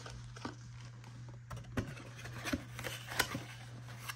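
Cardboard trading-card box being handled by hand and its flap opened: scattered light scrapes and clicks, the sharpest about three seconds in, over a steady low hum.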